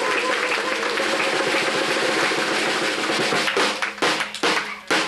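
A room of people applauding, the clapping thinning out into scattered single claps for the last second and a half.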